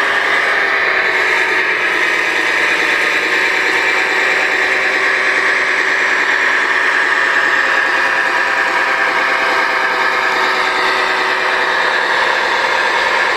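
Engine sound of an RC King Hauler model truck, running steadily as the truck drives loaded with a stone block: an even, unchanging hum with no deep bass.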